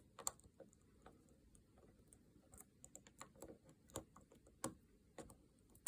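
Faint, irregular small clicks of lock picks and a tension tool working the pins inside a Master Lock LOTO padlock while the pins are set.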